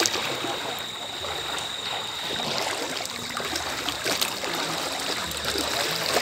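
Floodwater swishing and splashing around the legs of people wading through it while pushing an inflatable rubber rescue boat.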